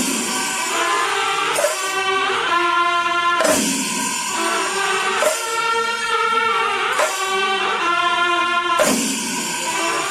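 Background music: sustained pitched notes that change every couple of seconds, with a bright jingling accent about every two seconds.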